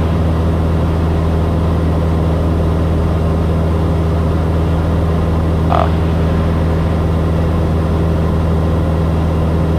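Steady drone of a Cessna 172S's four-cylinder Lycoming engine and propeller heard from inside the cabin, holding an even pitch in cruise on approach. A brief short sound about six seconds in.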